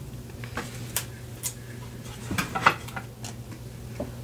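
Light clicks and taps of table tennis blades being handled and set down on a felt-covered table, a cluster of them about two and a half seconds in, over a low steady hum.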